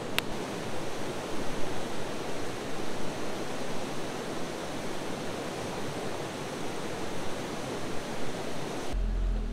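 River rapids rushing steadily, white water over rocks. Near the end this gives way to the low, steady rumble of an idling vehicle engine.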